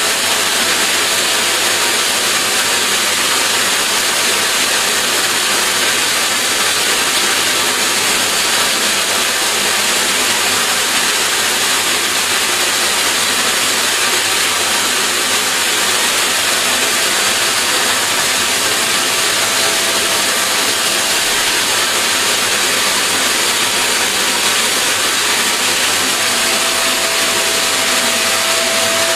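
Vacuum cleaner running steadily, a loud, even rushing noise with a faint steady whine that grows a little stronger near the end.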